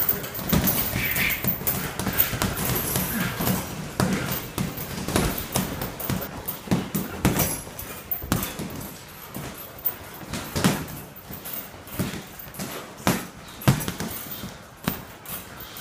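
Boxing gloves punching a heavy bag: repeated thuds in uneven flurries of combinations.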